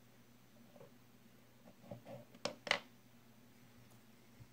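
A few light clicks and taps of a small screwdriver against the metal parts of a baitcasting reel and the table, the two sharpest close together about two and a half seconds in, over a faint steady hum.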